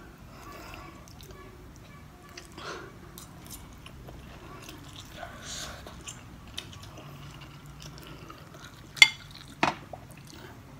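Faint eating sounds: noodles slurped and chewed, with a fork clinking against a plate. There are two sharp clinks about nine seconds in.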